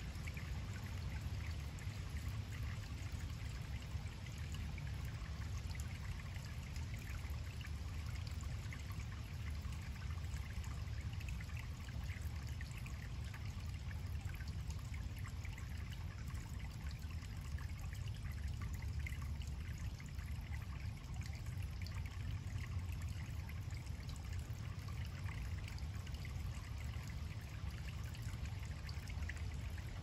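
Pond waterfall: water splashing and trickling steadily into a pond.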